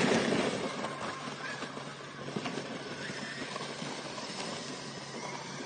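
Traxxas X-Maxx electric RC monster truck towing a person on a sled over packed snow, its motor whine and tyre noise fading over the first couple of seconds as it pulls away. Faint irregular knocks and crunches follow.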